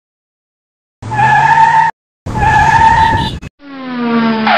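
Two edited-in tyre-screech sound effects, each about a second long and cut off abruptly, followed near the end by a vehicle sound whose pitch falls.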